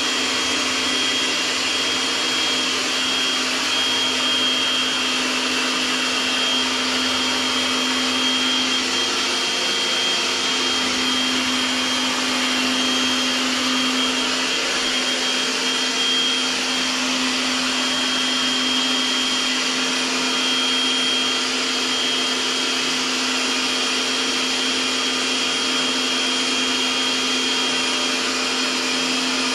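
Kärcher electric pressure washer running steadily, its motor humming under the hiss of the water jet as soap solution is sprayed from the lance.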